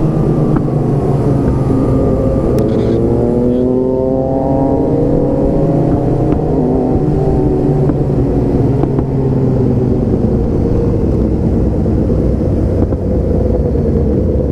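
Motorcycle engine running on the move. It climbs in pitch as it accelerates a few seconds in, then holds a steady pitch.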